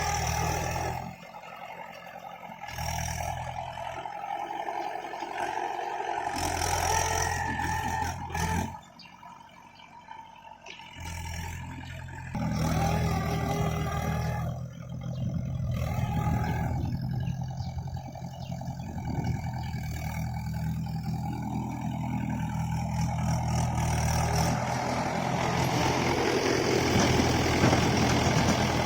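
Tractor diesel engine running, changing abruptly several times as if the recording is cut, with a quieter stretch about a third of the way in.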